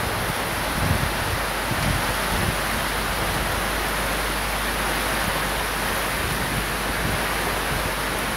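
Heavy rain in strong wind: a steady hiss of rain, with a few brief low gusts buffeting the microphone in the first few seconds.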